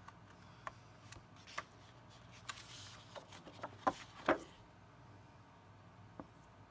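Faint handling of a sheet of scrapbook paper as it is lifted and flipped over: a soft swish about two and a half seconds in, then a few short, sharp paper crackles about four seconds in.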